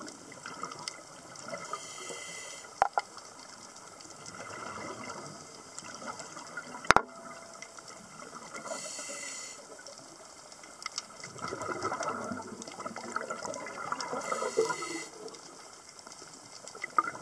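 Scuba breathing heard underwater through the camera housing: three hissing inhalations from the regulator, about six seconds apart, each followed by a longer burst of bubbling exhaled air. Two sharp knocks stand out, about three and seven seconds in.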